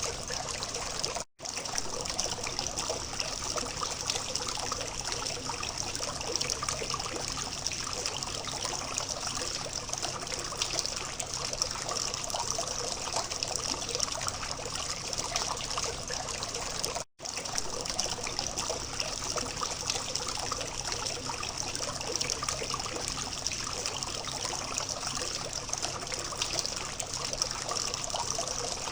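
Water from a small fountain trickling and splashing steadily, cutting out completely for a split second twice, once about a second in and again about seventeen seconds in.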